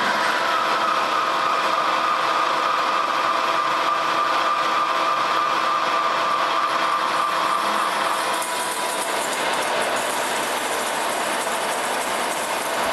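American Pacemaker engine lathe rough-turning a steel disc with a carbide insert: the spindle and gearhead running steadily under the cut, with a steady whine that stops about eight seconds in and gives way to a brighter hiss of cutting.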